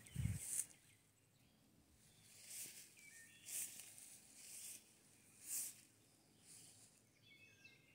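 Faint footsteps rustling through grass and brush, about one a second, with a few faint bird chirps.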